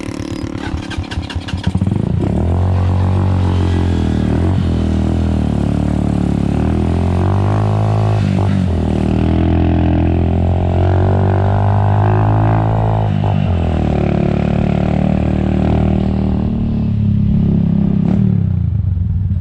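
Motor vehicle engine running on the move, its pitch repeatedly rising and falling as it speeds up and eases off. It comes in loud about two seconds in.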